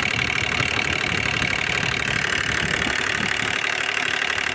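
Hyundai Grand i10's three-cylinder diesel engine idling with a rapid tak-tak ticking knock, which the mechanic takes for a worn timing chain, though he has not yet ruled out piston noise.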